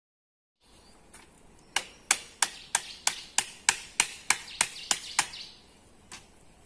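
A dozen sharp, evenly spaced knocks, about three a second, then one more a second later: a bamboo fence stake being struck to drive it into the soil.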